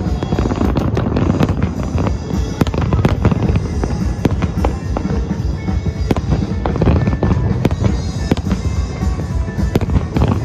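Aerial fireworks bursting in a rapid, continuous barrage: many sharp bangs and crackles piling over one another above a constant low rumble.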